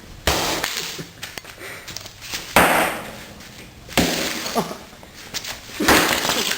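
An iPod being smashed: four hard, sudden impacts with crunching, breaking noise, each fading over a second or so, spaced one to two seconds apart.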